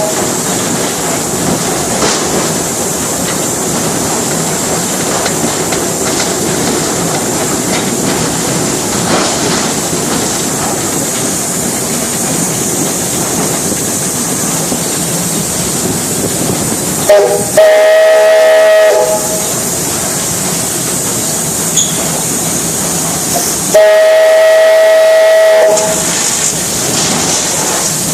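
Train running along the track with a steady rumble, sounding two blasts of its whistle: one about two-thirds of the way in and a second, about two seconds long, some six seconds later.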